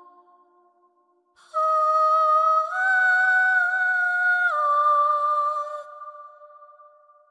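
Soundtrack music: a slow, wordless hummed melody of a few long held notes, rising a step and then falling back, fading out near the end.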